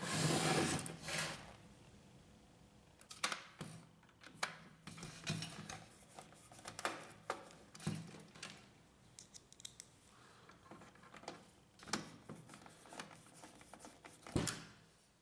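Scattered light clicks, taps and scrapes of a screwdriver and plastic laser-printer parts being handled while the separation pad assembly is screwed back in.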